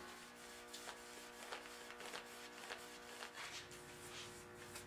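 Faint, irregular soft rubbing strokes, about two a second, of a cloth wiping dye stain onto a bare hardwood chair part, over a low steady hum.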